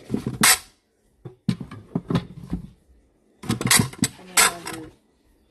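Sneakers being handled and set down on shoe shelves with metal front rails: short clatters and scuffs of soles against the shelving, in three brief bursts with quiet gaps between.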